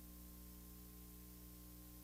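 Near silence: a steady low hum with a faint hiss, and no other sound.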